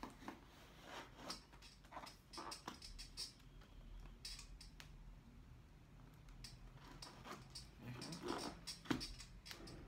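Utility knife scraping through packing tape along a cardboard box, with scattered short scrapes and rustles of the cardboard flaps, the loudest about eight to nine seconds in.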